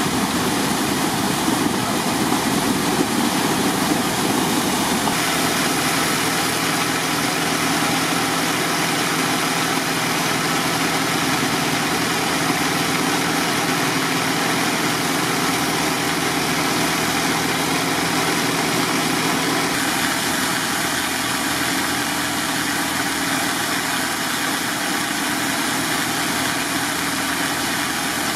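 Diesel engine of a Godwin Dri-Prime D150M dewatering pump running steadily at a constant speed while it pumps flood water.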